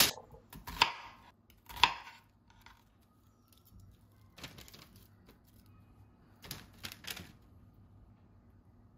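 Cut vegetable pieces (zucchini, onion, broccoli) being dropped by hand into a parchment-paper-lined wire air fryer basket. Three sharp taps come in the first two seconds, then two short spells of rustling paper about four and a half and seven seconds in.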